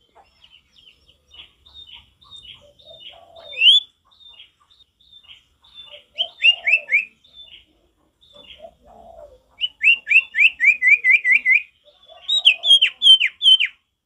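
Common iora (sirtu) singing: scattered short, down-slurred whistled notes, building into loud phrases of falling notes midway and near the end, with a fast run of about eight notes about ten seconds in. Softer, lower raspy notes come between the phrases.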